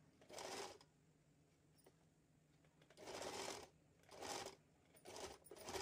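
Electric sewing machine stitching in short runs: about five brief bursts of roughly half a second each, with pauses between as the fabric is guided along the seam.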